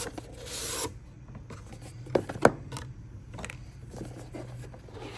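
Cardboard and plastic packaging being handled while a surprise box is opened: a brief rubbing scrape near the start, then a few sharp clicks and taps, the loudest about two and a half seconds in.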